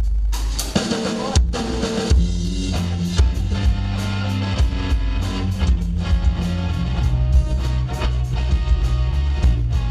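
Live rock band playing loudly: electric guitar, bass guitar and drum kit, with a steady drumbeat under held bass notes.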